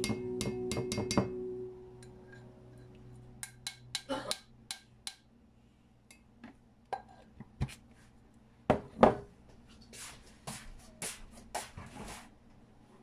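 Kitchenware being handled on a stone countertop: scattered clinks, taps and knocks of jars, bowls and containers being picked up and set down, with a sharper knock about nine seconds in. Background music trails off in the first two seconds.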